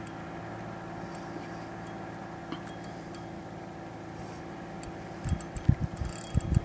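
A boat motor running with a steady hum, with a few faint ticks over it. About five seconds in, wind starts buffeting the microphone in irregular low thumps.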